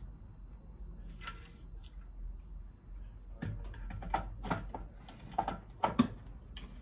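Steady low electrical hum with faint high-pitched whine tones, from inverter electronics running nearby. A few light clicks and knocks come in the second half.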